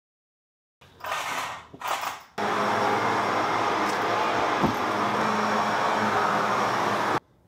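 Shark upright vacuum cleaner running: two short bursts about a second in, then a steady run of about five seconds that cuts off suddenly near the end.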